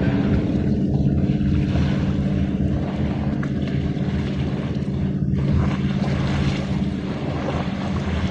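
A steady, low motor drone over a rushing wash of wind and sea noise.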